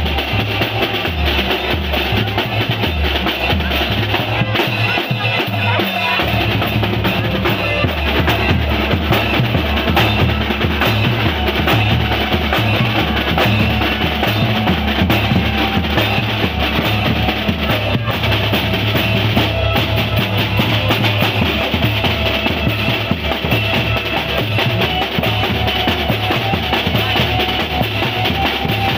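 Children's marching drum band playing: snare drums and bass drums beating a steady, driving rhythm with clashing hand cymbals. The bass drums drop out briefly about four seconds in, then come back.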